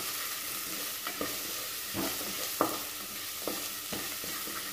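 Chopped carrot and onion sizzling in hot oil in a pressure cooker pan while a wooden spatula stirs them, its strokes scraping and knocking against the pan a few times.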